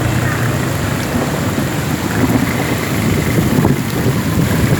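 Heavy rain falling, with wind buffeting the microphone in a steady low rumble.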